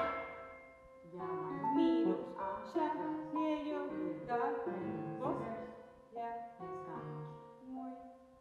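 Grand piano played quietly: a string of separate notes and small chords, each struck and left to ring away, with a brief lull about six seconds in.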